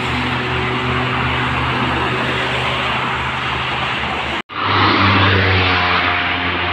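Steady toll-road traffic: tyre and engine noise of passing cars, buses and trucks. The sound cuts out for an instant about four and a half seconds in, then a heavy vehicle's low engine hum comes up as a bus approaches.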